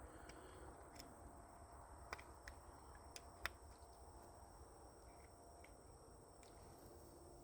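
Near silence, broken by a few faint, scattered clicks; the sharpest comes about three and a half seconds in.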